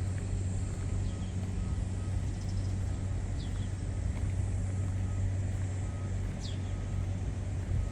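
Rice combine harvester's engine running with a steady low drone, with faint short beeps repeating at intervals and a couple of brief bird chirps.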